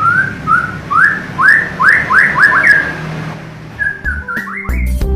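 White-rumped shama (murai batu) singing a quick run of about eight clear whistled notes, each sliding upward and climbing higher as the run speeds up, then a shorter burst of notes; background music comes in near the end.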